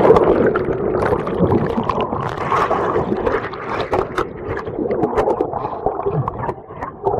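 Fast river water rushing and splashing right at the microphone, with many small splashes over a continuous churning rush, as someone wades through the current.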